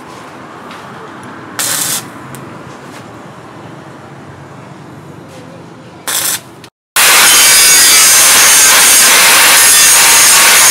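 Stick-welding arc crackling in two short bursts on a steel cleaver blade, then, about seven seconds in, a loud steady grind with a high whine as an angle grinder's flap disc grinds the steel.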